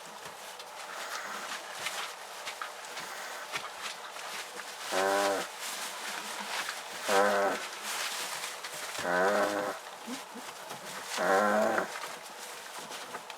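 Puppy from a litter giving four low, drawn-out whines about two seconds apart, the first about five seconds in. Each whine lasts under a second, and its pitch rises and then falls.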